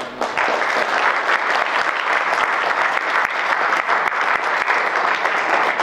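Audience applause: many people clapping together, starting abruptly and holding steady.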